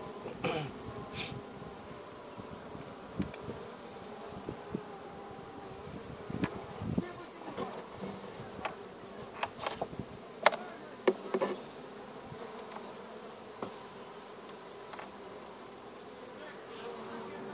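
Honeybee colony buzzing in an open hive, a steady hum. A few sharp clicks and knocks come through as the wooden frames are handled, the loudest about ten seconds in.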